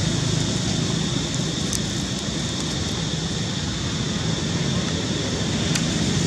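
Steady low outdoor rumble, with a thin steady high hum above it and a few faint clicks.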